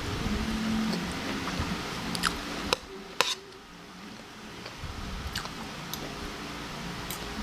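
Close-miked eating sounds: wet, squishy chewing of pork adobo and scrambled eggs, broken by several sharp clicks, the loudest a little after three seconds in.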